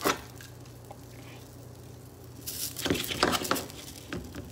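A utensil stirring and scraping sauced potato wedges frying in a nonstick pan: a short scrape at the start, then a run of scrapes and clicks against the pan from about two and a half seconds in.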